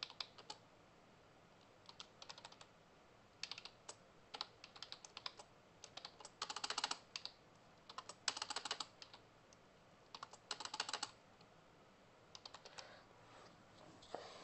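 Computer keyboard typing in several short bursts of rapid keystrokes, with pauses between them.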